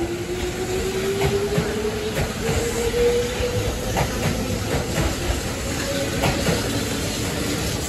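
Kintetsu 'Aozora' charter train pulling out of the platform. Its motors whine, rising in pitch over the first three seconds and then holding level as it gathers speed, while the wheels click irregularly over the rail joints.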